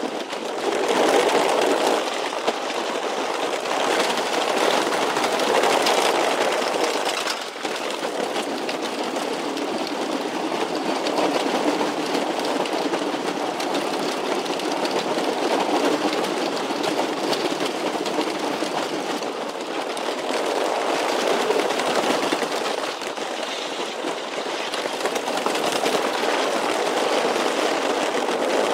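Roller coaster train running along steel track, a continuous rolling noise that swells and eases every few seconds.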